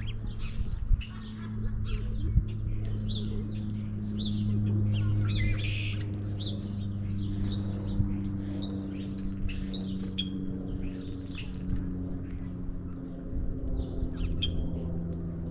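House sparrows and house finches chirping in quick, repeated short calls at a feeder, over a steady low hum whose pitch drifts slowly downward.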